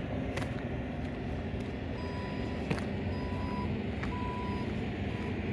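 A vehicle's reversing alarm beeping about once a second, starting about two seconds in, over a steady low engine rumble. A few sharp clicks sound among the beeps.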